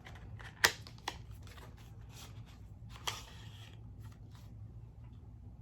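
A cosmetics box being opened by hand: a sharp click about half a second in, a lighter one soon after, then a brief papery rustle about three seconds in, with a few faint taps of handling.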